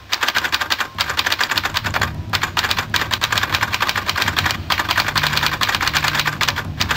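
Rapid typewriter-key clicking sound effect, broken by short pauses about two seconds and four and a half seconds in.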